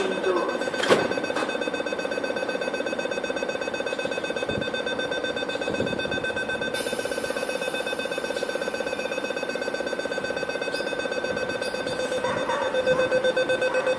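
Rapid electronic warning beeps, about six a second, sounding steadily as an East Rail Line train stands with its doors shut ready to depart, growing louder near the end. A single clunk about a second in, and a high hiss joins about halfway through.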